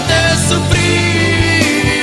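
Recorded music: a song playing, with a melody line held and sliding over sustained low notes.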